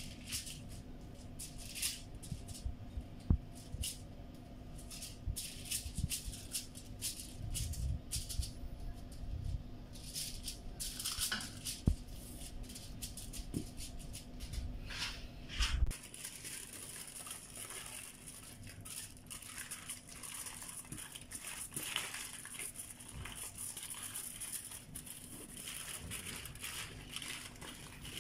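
Aluminium foil crinkling and crackling under gloved hands in irregular ticks, with soft low thumps of hands pressing the meat mixture. After about sixteen seconds it turns to a denser, steadier crinkling as the foil is rolled up.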